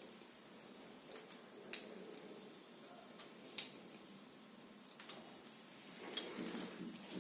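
Hands massaging oiled skin: a faint rubbing with a sharp, wet click about every two seconds, plus a few softer ticks near the end.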